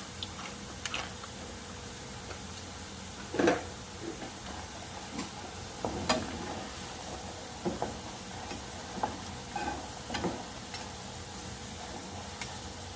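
Potato fries sizzling in hot oil with a steady hiss, with a utensil knocking and scraping against them or the pan now and then as they are stirred.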